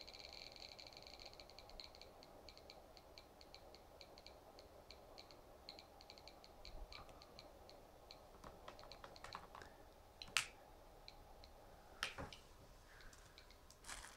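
Faint water drips falling into a bowl of water off a lifted-out moisture sensor: a quick patter at first that slows to occasional single drips. There are a few louder sharp clicks or knocks later on.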